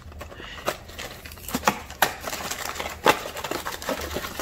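Trading-card packaging being handled: a cardboard box and a printed sleeve of booster packs giving scattered taps, knocks and crinkles, with sharper knocks about two and three seconds in.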